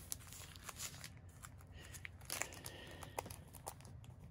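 Faint crinkling and rustling of a sticker book's clear plastic sleeve being handled, with scattered light clicks and taps.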